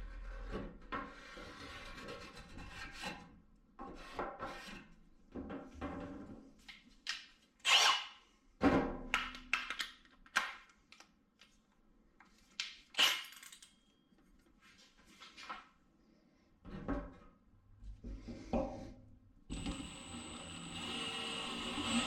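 A pen scratching on the steel fuel tank as a hole outline is marked, then a string of knocks and clunks as tools are handled. Near the end a Milwaukee M18 cordless drill starts running steadily, with a hole saw's pilot bit pressed onto the tank.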